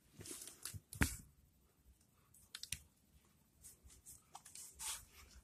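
Faint handling noise: scattered clicks and rustles, with a sharp click about a second in and a longer rustle near the end.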